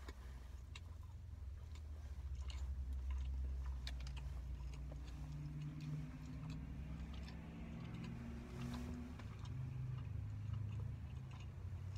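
A person chewing a mouthful of roast beef sandwich with the mouth closed, with small wet mouth clicks scattered through, over a low rumble.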